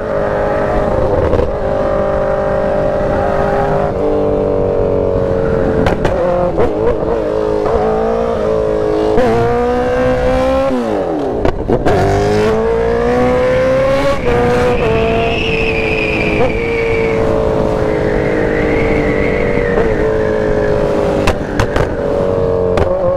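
Sport motorcycle engine running hard at highway speed, with wind rushing past. Its pitch shifts up and down several times, drops sharply about ten seconds in, then climbs again as it accelerates.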